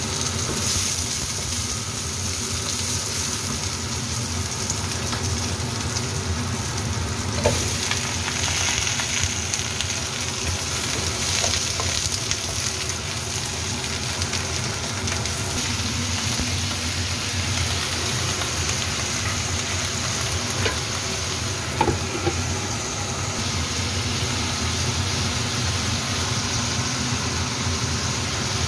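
Cucumber slices and fish balls sizzling in oil in a nonstick wok as they are stir-fried with a spatula, over a steady hum. A few short sharp knocks stand out, about a third of the way in and again about three-quarters through.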